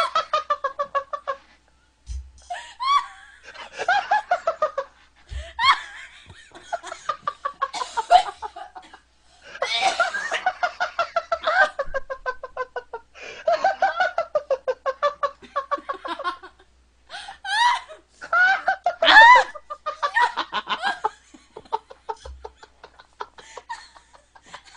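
A woman's hysterical belly laughter, in long runs of rapid ha-ha pulses with short gasping breaks between them, loudest about three quarters of the way through. A few dull low bumps come in between.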